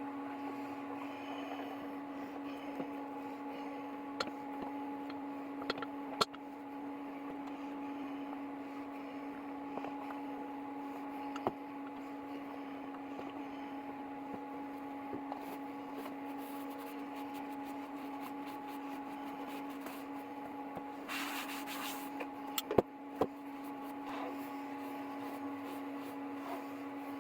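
A steady electric hum with overtones, broken by scattered light clicks and knocks, and a short hiss about 21 seconds in.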